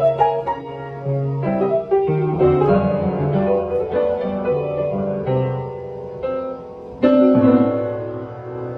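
Background piano music, with chords changing every half second or so and a louder chord struck about seven seconds in.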